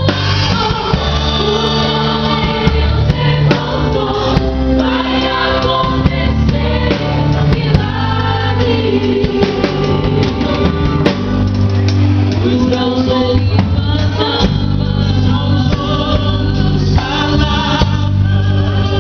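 Gospel worship music with group singing over a steady bass and keyboard accompaniment.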